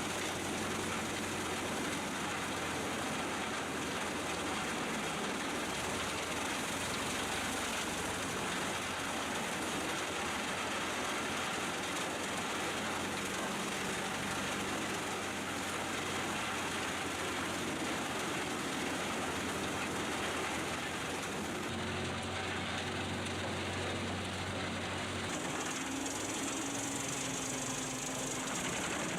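Pezzolato PTH-900G drum wood chipper running steadily, its engine and drum making a constant mechanical noise. The hum shifts in pitch twice near the end.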